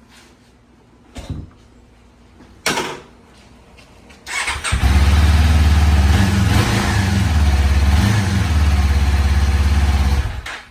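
Kawasaki Ninja 500 parallel-twin engine with its stock muffler, started after two short knocks, catching and then idling steadily before cutting off suddenly near the end. To the owner it sounds bland, like nothing much.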